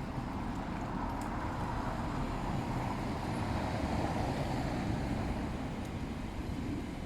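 Street traffic noise with a vehicle passing, swelling a little and easing off over a few seconds.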